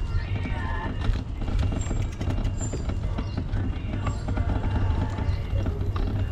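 Wind rumbling on the bike-mounted camera's microphone while the bicycle rattles and knocks over a cobblestone street as it rolls along.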